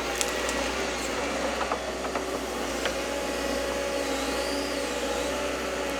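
Excavator engine and hydraulics running steadily, a continuous machine sound with a held whine, and a few faint clicks.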